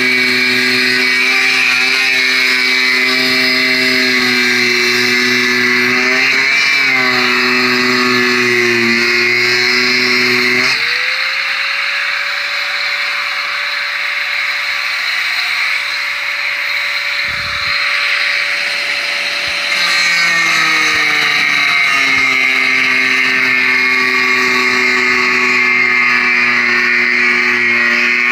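Electric angle grinder sanding a wooden boat frame: a steady motor whine over the hiss of the disc on the wood. About eleven seconds in, the pitch jumps up as the grinder runs free off the wood, then slides back down around twenty seconds in as the disc goes back under load.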